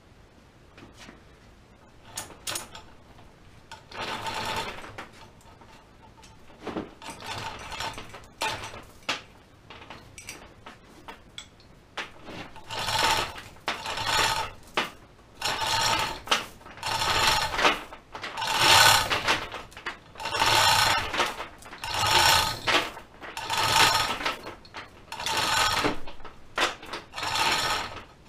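Scattered knocks and clicks of metal parts, then a steady run of repeated scraping strokes, about one every second and a half, each with a ringing squeal: metal being worked by hand on a cutter and tool grinder during saddle removal.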